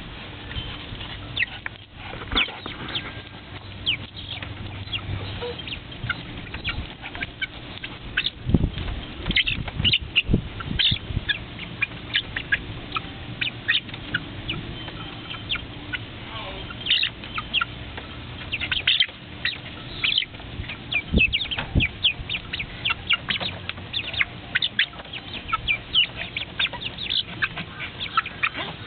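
Backyard chickens clucking and squawking in a flurry of many short, sharp calls, with a few low thumps among them.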